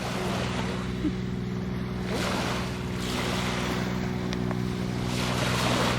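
Waves washing in on a sandy shore, swelling twice, over a steady low mechanical hum such as a distant boat engine. A couple of faint ticks come a little past the middle.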